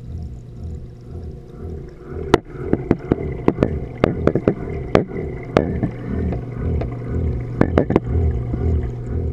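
Heard underwater in a saltwater reef aquarium: a steady low hum of the tank's pumps, with a slow pulsing throb. A string of sharp clicks and knocks runs from about two seconds in to about eight seconds in.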